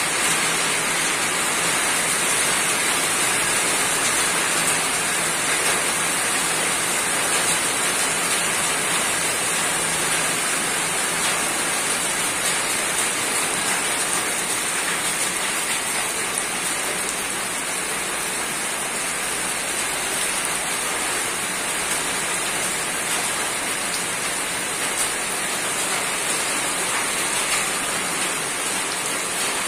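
Rain falling steadily on a roof, an even, unbroken hiss of many drops with no single louder hits.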